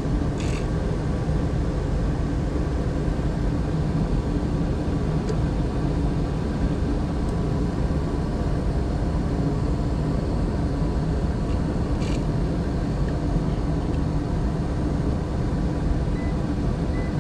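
Gas furnace running steadily, its inducer motor and burners giving a constant low rumble with a faint hum. Two brief scratchy ticks, about half a second in and again near twelve seconds.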